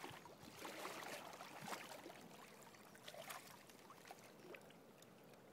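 Faint splashing of shallow river water as a hooked barbel is drawn in and netted: a few soft splashes over a low water hiss.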